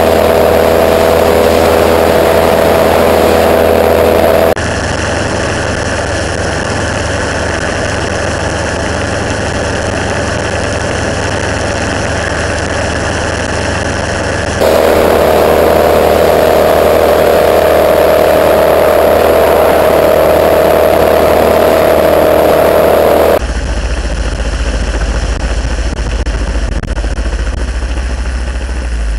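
Monarch gyroplane's engine running steadily, heard close up on board. The tone changes abruptly about 4½, 15 and 23 seconds in, switching between a mid-pitched hum and a duller, deeper drone.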